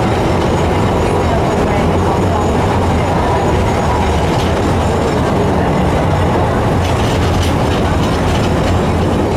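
A vintage wooden Peter Witt-style tram running along the track, heard from inside the driver's cab: a loud, steady rumble of the wheels on the rails and the running gear, with a few faint ticks about seven seconds in.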